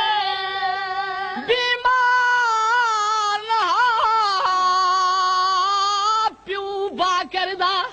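A high solo voice chanting a mourning lament without accompaniment. It holds long, wavering notes, then breaks into short phrases near the end.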